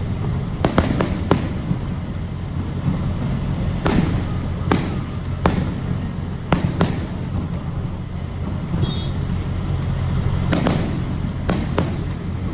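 Irregular sharp pops, about a dozen spread unevenly, over a steady low rumble.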